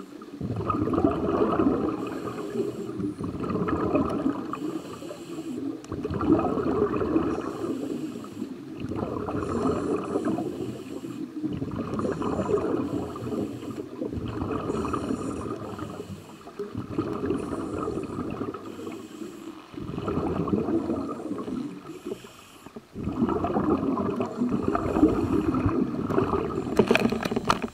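A scuba diver breathing through a regulator underwater, heard from close by. Each breath is a rumbling rush of exhaled bubbles lasting one to three seconds and coming every two to three seconds, with a faint hiss of inhalation between some of them.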